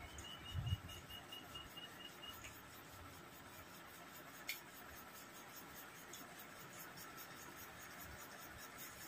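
Quiet room tone with small, faint sounds: a low thud under a second in, a run of about ten quick, faint high pips over the first two seconds, and a single sharp click about halfway through.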